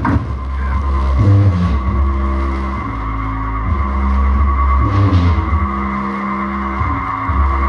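Bass-heavy electronic music played loud through a car audio system with two 12-inch woofers. A deep bass line steps from note to note about once a second under a steady held high tone.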